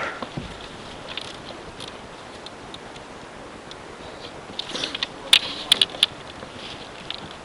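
Scattered sharp clicks and crackles over faint outdoor background noise, with a cluster of louder clicks about five to six seconds in.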